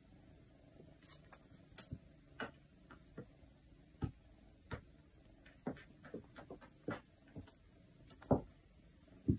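Kittens playing with a feather wand toy on a wooden floor: irregular light taps, scuffs and scrabbles of paws and the toy on the boards, with a louder thump near the end.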